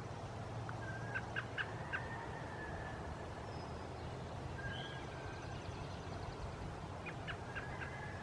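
Wild turkeys calling: a short run of sharp clucks with a thin held note, about a second in and again about seven seconds in, with faint songbird notes in between.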